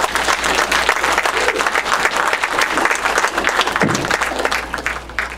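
Congregation applauding, a steady patter of many hands clapping that dies away near the end.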